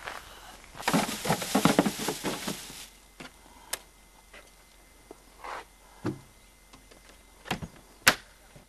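Handling noises at a helicopter's side cargo compartment: a burst of rustling and clattering about a second in as bags are handled and loaded, then a few separate sharp clicks and knocks, the loudest near the end.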